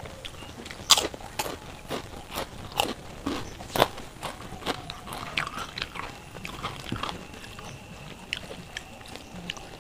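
Close-miked crunching of fried papad being bitten and chewed: a run of sharp, brittle crunches, the loudest in the first four seconds, smaller and sparser after.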